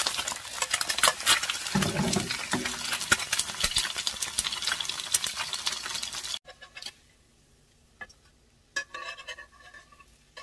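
Eggs frying in oil in a pan, a dense crackling sizzle, with a metal slotted spatula working under them. The sizzle cuts off abruptly about six seconds in, leaving only a few soft clicks and knocks.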